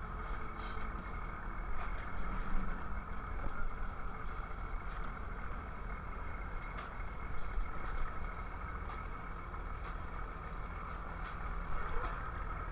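Fishing boat engine running steadily at idle, with a few light knocks on deck.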